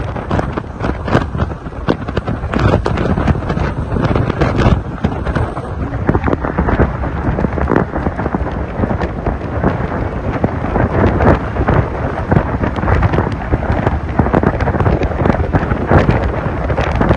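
Heavy wind buffeting on the microphone of a camera riding on top of a moving vehicle: a loud, crackling rumble without letting up.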